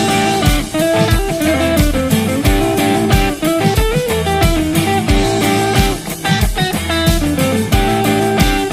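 Background music: a bluesy guitar-led song with drums and a steady beat.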